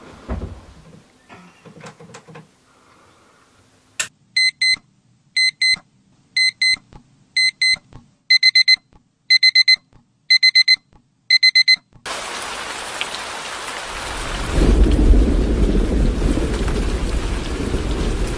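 Digital alarm clock beeping in quick double beeps about once a second, eight times, then stopping. Then steady rain and gusting wind, the wind rumbling heavily on the microphone from a couple of seconds later.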